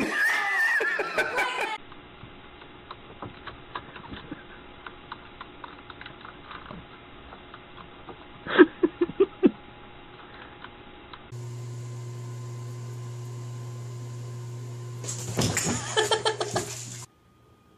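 Computer keyboard keys clicking, with a short run of about five loud pulses like laughter partway through. Then a steady low hum, with another burst of laughter near the end.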